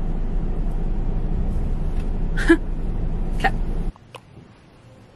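Steady low rumble inside a parked car with the engine idling, with two short sharp sounds about two and a half and three and a half seconds in. About four seconds in it cuts off abruptly to quiet room tone.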